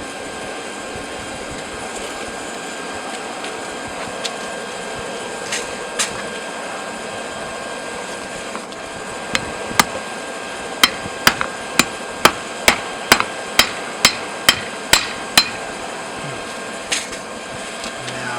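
Hand hammer striking a hot railroad spike on an anvil: a couple of lone taps, then a run of about fourteen ringing blows, roughly two a second, as the spike is drawn out into a knife blade. Steady background noise throughout.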